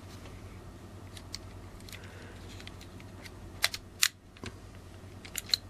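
Small sharp clicks and taps of plastic and metal camera parts as the Samsung ES10's circuit board and lens assembly are handled and worked loose from the body. A quick pair of clicks comes about three and a half seconds in, the loudest just after, and two more near the end, over a steady low hum.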